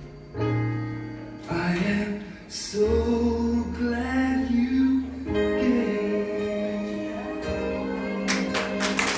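A sung worship song with acoustic guitar accompaniment playing while the children perform actions. Clapping breaks out near the end, as the song finishes.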